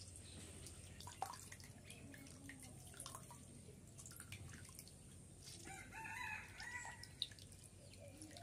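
Faint water drips and small splashes from hands working wet lumps in a steel plate of water, with a few sharp clicks. A chicken crows briefly about six seconds in.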